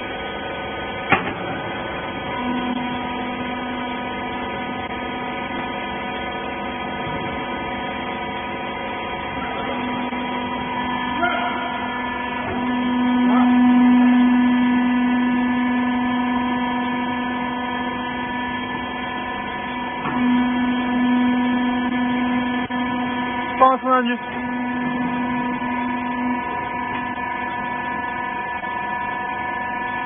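Hydraulic rag baler's electric motor and pump running with a steady humming whine. It swells louder for a few seconds about halfway through and again later as the press works, with a couple of sharp metallic clicks about three quarters of the way in.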